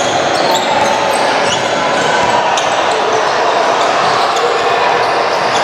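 Gym sound during a youth basketball game: a basketball bouncing on the court under a steady din of voices echoing in the hall, with scattered short, high sneaker squeaks.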